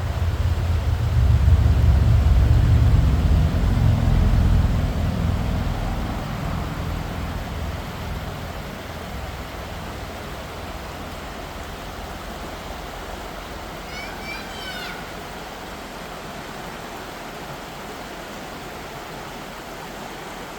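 Steady rush of flowing water. A low rumble is loud in the first few seconds and fades away by about eight seconds in, and a brief high chirping call comes a little past the middle.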